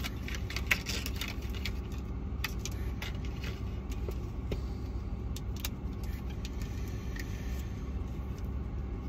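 Steady low road rumble inside a moving car's cabin, with scattered light clicks and rattles and one sharper click about a second in.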